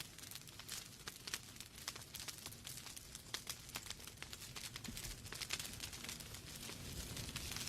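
Wood fire in a fireplace crackling, with many small quick pops and snaps over a soft steady hiss and low rumble.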